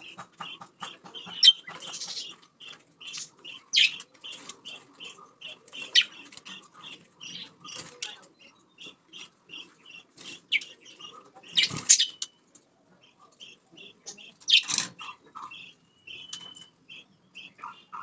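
Budgerigars chirping in a quick, even run of short high notes, about four a second, while one bathes in a small water dish: several loud sharp splashes and bursts of wing flapping break in.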